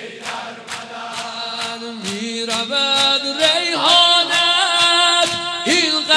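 Rhythmic chest beating (sineh-zani) by a crowd of mourners, even slaps about two a second. From about two seconds in, a long held chanted note of a Shia mourning noha swells over the beat.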